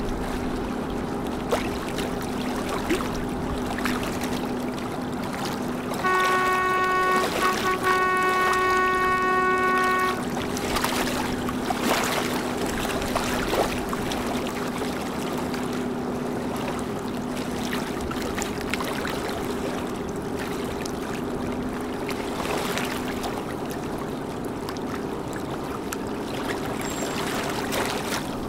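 Boat diesel engine running steadily over river water wash. About six seconds in, a vessel's horn sounds for about four seconds, with a short break near its start, and is the loudest thing heard.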